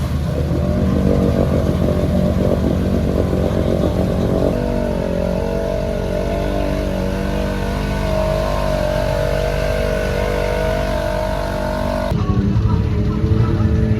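Can-Am ATV engine held at high, fairly steady revs. Its pitch shifts abruptly twice, about four seconds in and again near the end.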